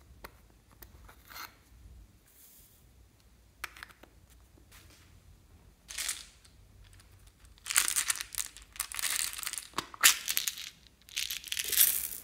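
Small plastic toy containers handled and their contents shaken out over slime: a few light clicks, a short spill of glitter about six seconds in, then loud crackling bursts from about eight seconds on as small plastic beads are shaken out onto the slime.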